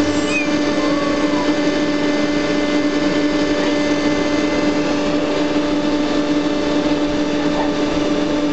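Vacuum cleaner running steadily, a constant motor hum over an even hiss of air.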